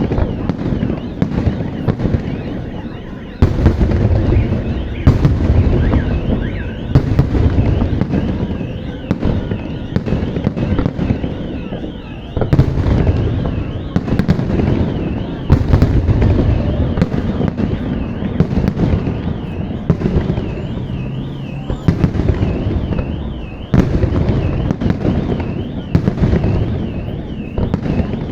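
Fireworks display: heavy aerial shell bursts booming every second or two in quick succession, with a high warbling tone wavering up and down behind them.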